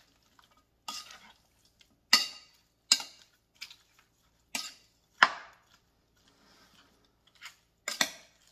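A spoon clanking and scraping against a cooking pot as chopped pork and seasonings are stirred together, with about seven irregular knocks.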